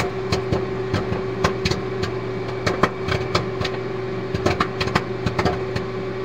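Popcorn popping in a microwave oven: the oven's steady hum runs under irregular sharp pops.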